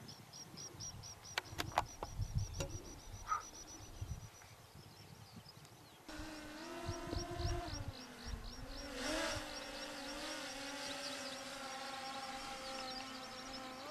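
Wind on the microphone with a high chirping repeated about six times a second and a few sharp clicks; about six seconds in, the steady hum of a quadcopter drone's propellers sets in, its pitch shifting up and down as it manoeuvres.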